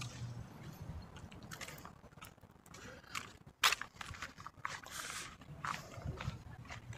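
Footsteps crunching on grass and gravel beside railway tracks at a walking pace, with rustling from a handheld phone and one sharp click a little after halfway.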